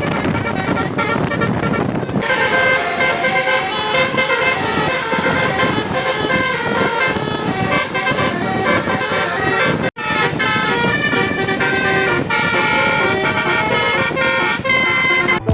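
Tour bus's multi-tone 'telolet basuri' air horn playing a melody of changing notes, starting about two seconds in over vehicle and street noise. The tune breaks off for an instant about ten seconds in, then carries on.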